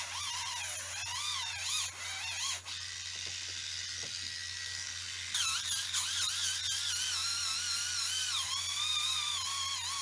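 Kemei electric callus remover whining as its motorised roller grinds against the sole of a foot, its pitch wavering up and down as the pressure changes. The whine fades for a couple of seconds, then comes back louder and slightly higher about five seconds in.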